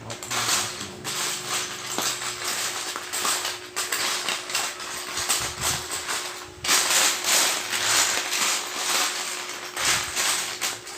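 Small plastic building-brick pieces clattering and clicking as they are rummaged through and handled, a busy run of rattles and clicks.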